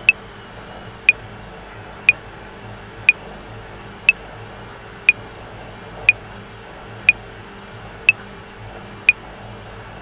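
Metronome clicking at 60 bpm, one sharp click a second, setting in at the start after a stretch without clicks, over the steady hum and low rumble of a top-loading washing machine running.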